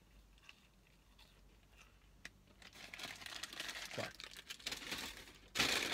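Paper fast-food packaging crinkling and rustling as it is handled, starting about halfway in and loudest near the end.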